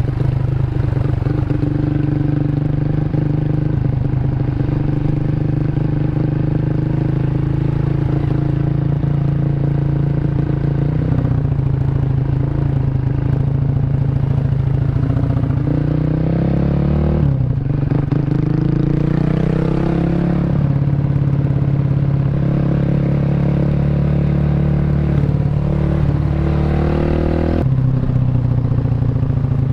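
Single-cylinder four-stroke engine of a Honda Revo underbone motorcycle, bored up to 150cc and breathing through a CLD C7 aftermarket exhaust, running under way. The note climbs and falls with the throttle, with a sharp drop at a gear change about halfway through and another change near the end.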